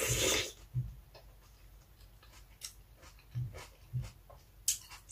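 Close-miked eating sounds: a juicy bite into a whole raw tomato at the start, then chewing with a few scattered wet mouth clicks and smacks.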